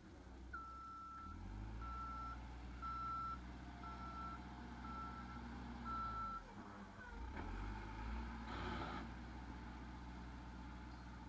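Backhoe loader's diesel engine running with its backup alarm beeping six times, about once a second, then falling silent as the engine note shifts. A short hiss follows a couple of seconds later.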